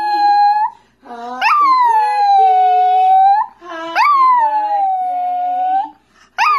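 Small long-haired terrier howling along to singing: long drawn-out howls of about two seconds each, every one starting with a sharp upward yelp and then holding on one note, three in a row with short breaths between and a fourth beginning at the end.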